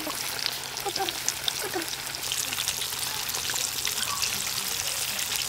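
Breaded chicken pieces deep-frying in oil in a wok, a steady dense sizzling and crackling of bubbling oil.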